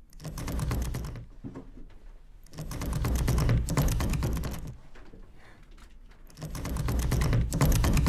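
Rapid, dense mechanical clicking in three swelling bursts: about a second long at the start, about two seconds in the middle, and a longer burst near the end.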